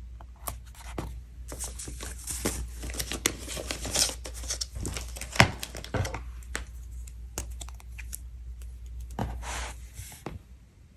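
Close-up crinkling and rustling of paper as a planner sticker is peeled from its sheet and pressed onto a planner page, with soft clicks and taps of handling; one sharper click about halfway through.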